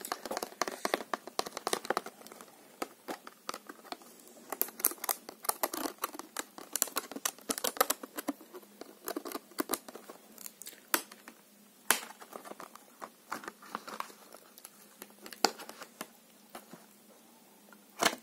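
Glossy plastic packaging crinkled and crackled in the hands close to the microphone, in many quick sharp crackles, busiest in the first few seconds and sparser after, with a few louder single cracks.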